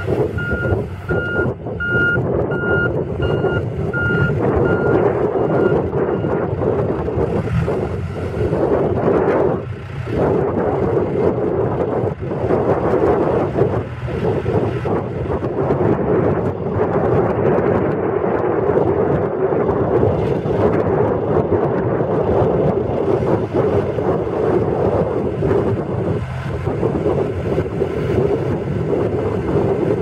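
1997 John Deere 310E backhoe loader's four-cylinder diesel engine running steadily, with its backup alarm beeping for about the first six seconds as the machine reverses, then stopping. The engine keeps working while the loader bucket and backhoe boom are raised on the hydraulics.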